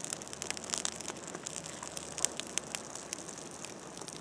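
Fire burning in a fire pit, crackling: a steady rush of noise with many quick, irregular pops.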